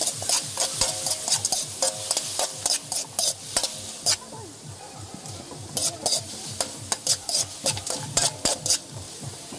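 A metal ladle scrapes and clacks against a large aluminium wok in quick repeated strokes while chopped chicken fries in oil, sizzling steadily. The stirring eases off for a moment around the middle, then picks up again.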